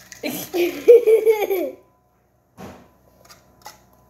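A girl laughs for about a second and a half, a high, wavering giggle. A brief knock follows, then a few faint taps.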